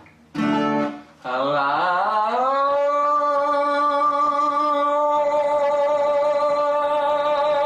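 Man singing a vowel exercise: a short sung note, then a note that slides up and is held steady on one pitch, the vowel's colour shifting slightly about five seconds in.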